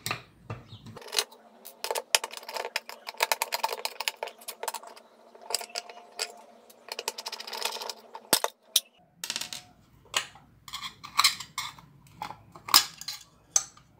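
Small screwdriver working screws out of the underside of an M-Audio M-Track Plus audio interface: irregular scraping and clicking, with light metallic clinks of small screws and parts.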